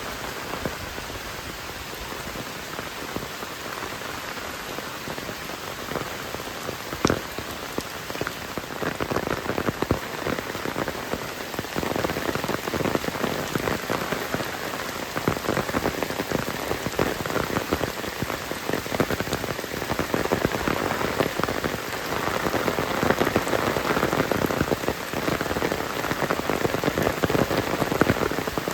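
Heavy rain falling, a dense steady patter of countless drops hitting surfaces, growing louder about a third of the way in, with one sharper drop tick about seven seconds in.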